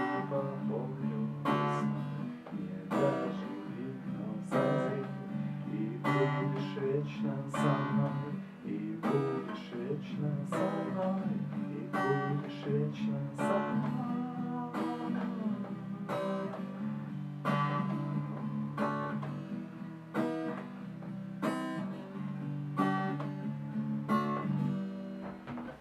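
Acoustic guitar strummed in a steady rhythm, a chord struck about every second and a half over ringing low strings, stopping just before the end.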